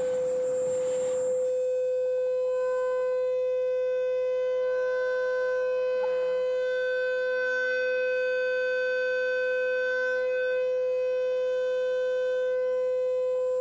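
Loudspeaker blasting a loud, steady tone of about 500 hertz with fainter overtones, tuned to the natural resonant frequency of a wine glass to make its rim vibrate hard enough to shatter it.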